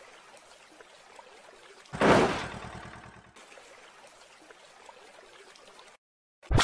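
Plastic toy truck rolling over in a shallow muddy puddle: one short splash about two seconds in that dies away over about a second, with only faint background hiss around it.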